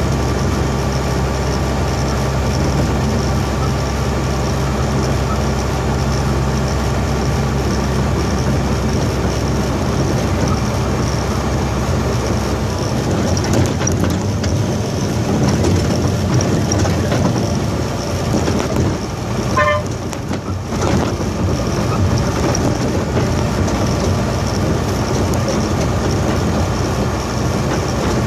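Dump truck's diesel engine running under way, heard from inside the cab, with steady road noise. About two-thirds through, the sound briefly drops away and then picks up again.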